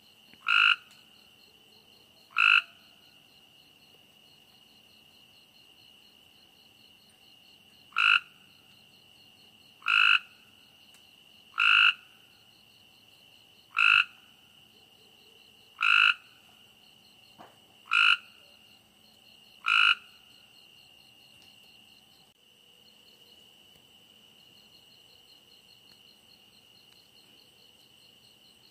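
A frog croaking nine times with short, loud calls, mostly about two seconds apart, with a longer pause after the second; the calls stop about two-thirds of the way through. A steady high trill runs beneath them.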